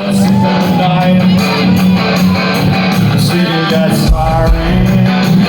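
A live folk-punk band playing loudly, with strummed guitars driving the song; a deep bass low end comes in about four seconds in.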